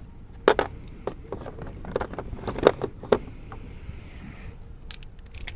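Clicks, taps and light scrapes of small hard objects being handled, most of them in the first three seconds, over a steady low rumble.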